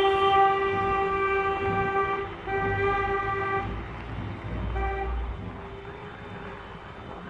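Car horn sounding: a long steady blast, a second shorter honk after a brief gap, then a quick toot about five seconds in, growing fainter toward the end.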